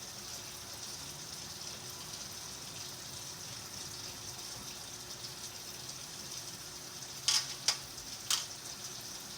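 A steady hiss, with three short sharp clicks about seven to eight and a half seconds in.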